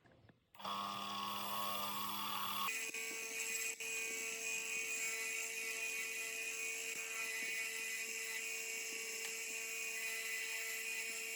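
A motor-driven machine or power tool starts up and runs with a steady whir. About two and a half seconds in its sound changes to a steadier tone with a high hiss, and it keeps running.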